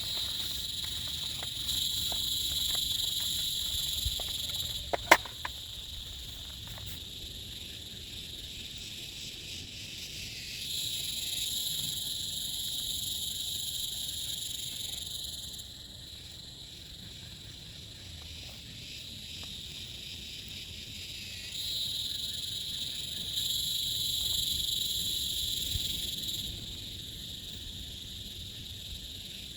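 Insects chirring in a high, steady chorus that swells louder three times, for about five seconds each time. A single sharp click sounds about five seconds in.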